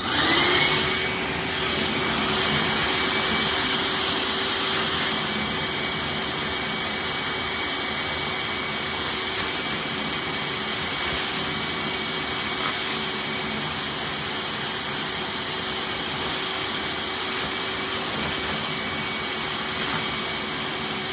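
Hoover wet/dry shop vac switched on, its motor spinning up within a moment and then running steadily with a constant whine over rushing air as it cleans dust out of a vacuum's pre-motor filter.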